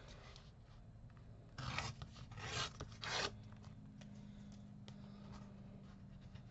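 Paper being worked against a clear plastic ruler on a cutting mat: three short scraping strokes close together about two seconds in, with small taps and rustles of paper around them.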